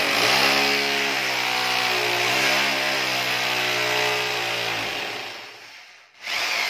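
Corded electric hammer drill boring into a wall, its motor whining steadily with a slight wobble in pitch about two seconds in. It winds down about five seconds in and starts up again just before the end.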